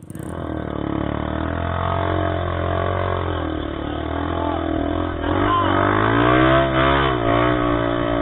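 Trail motorcycle engine running and being revved, its pitch rising and falling repeatedly, loudest and highest about six to seven seconds in.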